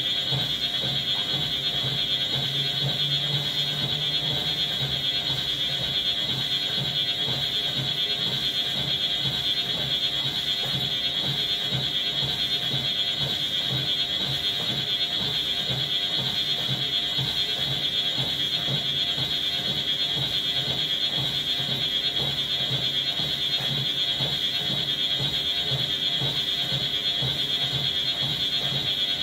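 Treadmill running with a man walking on it: a steady high-pitched motor whine, with the regular thud of footsteps on the belt. Music plays in the background.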